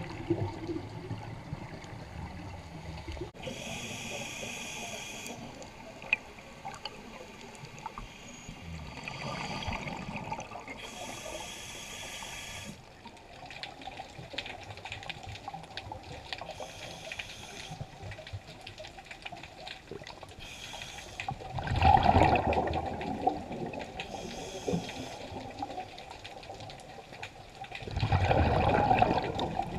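Underwater sound of a scuba diver breathing on a regulator over a constant watery background. A hissing breath comes twice in the first half, and two louder bursts of exhaled bubbles come in the second half.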